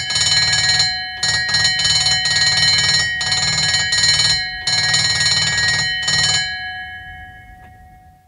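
Bedford ambulance warning bell ringing close up in rapid, continuous strokes, broken by a few short pauses. About six seconds in the striking stops, and the bell rings on and fades over the last two seconds.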